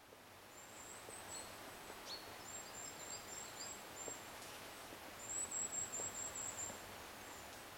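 Forest ambience: very high, thin chirping calls come in three short bouts over a faint steady hiss, the last bout the loudest.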